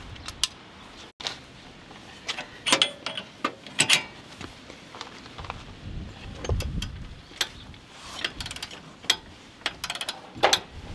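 Irregular ratchet clicks and metal clinks from a breaker bar working the forcing screw of a ball joint press, pressing an old ball joint out of a Jeep Wrangler JL's front steering knuckle.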